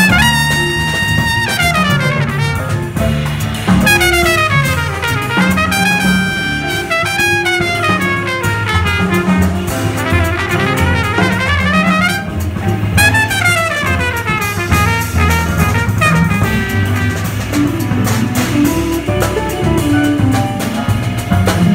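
Live jazz: a trumpet plays a fast solo of quick rising and falling runs over walking upright double bass and a drum kit with cymbals. The trumpet drops out near the end while bass and drums carry on.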